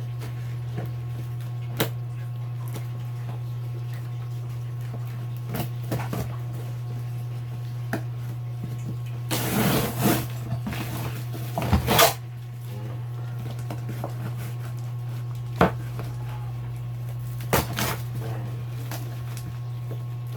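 Packaging being handled and opened: scattered clicks and knocks, with two short bursts of rustling, scraping noise about ten and twelve seconds in, over a steady low hum.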